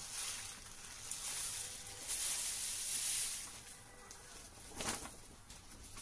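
Ground coffee sliding off a sheet of paper into a stainless steel cone filter: a hissing, pattering pour with paper rustling, loudest about two to three seconds in. A short tap near five seconds in.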